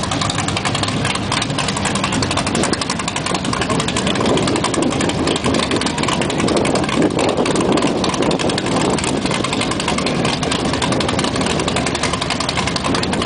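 Twin Whipple-supercharged racing engines of a Fountain offshore powerboat idling, a loud, steady rumble of rapid exhaust pulses.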